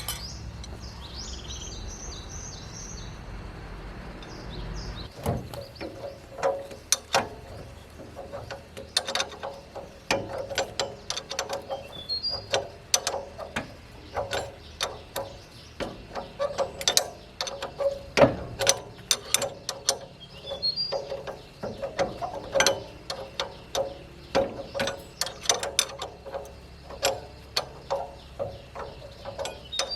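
Metal-on-metal repair work: dense, irregular clicking and knocking of tools on metal parts, with a ringing tone, starting after a low machine hum cuts off about five seconds in. Birds chirp now and then.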